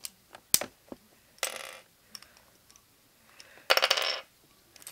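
Small hard Beyblade parts, metal and clear plastic wheels, clicking and clattering against each other as fingers work them. A single sharp click comes about half a second in, then two short rattles, the louder one about four seconds in.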